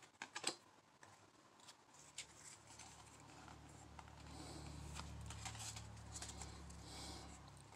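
Faint clicks and rustling of Pokémon trading cards being handled and fanned out, with a faint low hum from about two seconds in.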